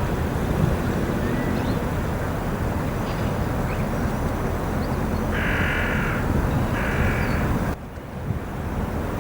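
Two harsh, crow-like bird caws a little over halfway through, over a steady low rumble. The rumble drops away abruptly near the end, then returns.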